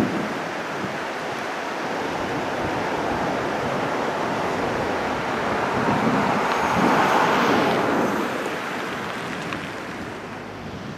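Fast river water rushing through whitewater rapids: a steady hiss of churning water that swells a little about six to eight seconds in and fades out near the end.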